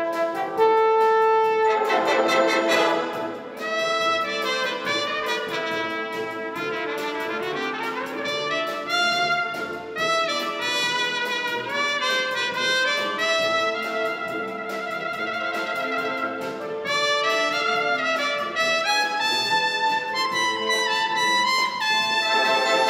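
Concert wind band playing a 1960s pop medley arrangement, with a solo trumpet out in front over trumpets, trombones and the rest of the band. About seven seconds in there is a rising sweep.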